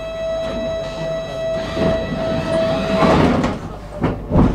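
Tram's door-closing warning signal: one steady electronic tone held for about three seconds and cut off sharply, with several heavy knocks and thumps around and after it, the loudest near the end.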